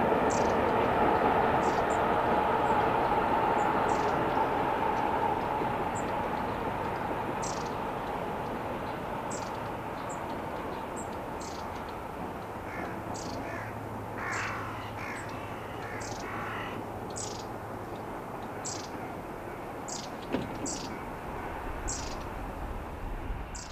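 Freight train's running noise fading away as it recedes, while a crow caws several times about halfway through and short high chirps sound throughout. A single soft knock comes near the end.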